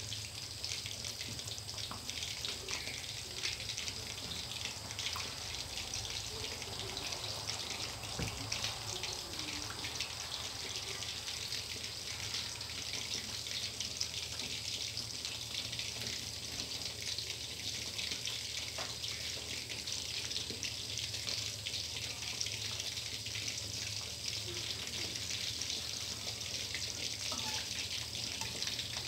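Sun-dried red tilapia deep-frying in hot oil in a stainless steel pan: a steady sizzle with fine crackling throughout.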